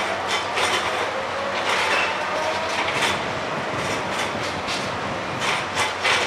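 Balfour Beatty track laying machine at work: steady machinery noise with irregular metallic clanks and rattles, about two a second, over a faint steady whine.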